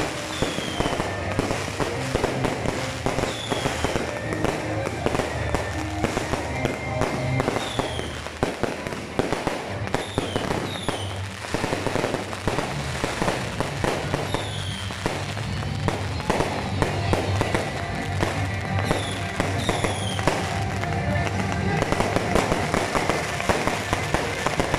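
Fireworks show: dense, continuous crackling and popping of aerial bursts and ground-launched barrages, with several short whistles that drop in pitch every few seconds.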